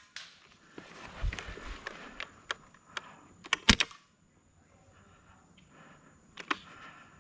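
Airsoft gun firing a few scattered shots, each a sharp click, with two in quick succession about three and a half seconds in and one more near the end.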